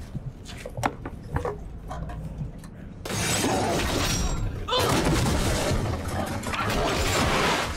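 Movie sound effects: a few faint knocks, then about three seconds in a sudden loud crashing, rushing noise that carries on with a brief dip.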